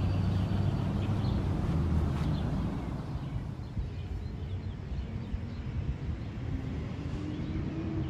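Low, steady rumble of street traffic, a vehicle engine running and easing off after about three seconds, with a few faint bird chirps.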